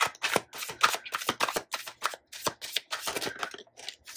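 A deck of oracle cards being shuffled by hand: a quick, irregular run of card-on-card slaps and flicks.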